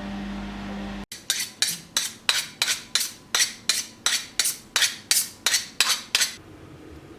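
Background music cuts off about a second in. It is followed by about sixteen evenly spaced sharp knocks, roughly three a second, of a kitchen utensil striking a dish or board, which stop about a second before the end.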